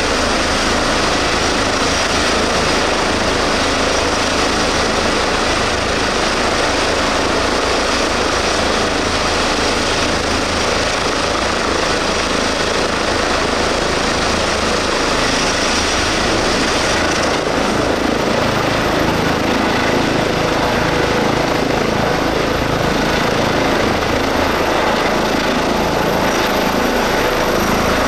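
Twin-turbine H135 (EC135) air rescue helicopter running on its pad with the main rotor turning, a loud, steady turbine whine and rotor noise as it readies for take-off. It lifts into a low hover near the end.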